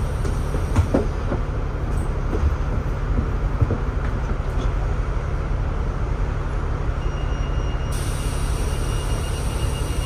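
Double-decker bus idling at a stop, heard from inside its upper deck: a steady low rumble with a few light knocks and rattles.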